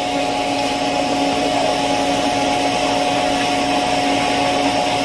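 Automatic egg incubator running with a steady electric motor hum while its egg turner tilts the egg trays back toward level.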